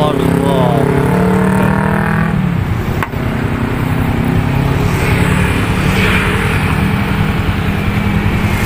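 Motorcycle engines running close by, with a steady low engine hum. One engine note rises and wavers early on, then cuts off about two seconds in. A single sharp click comes about three seconds in.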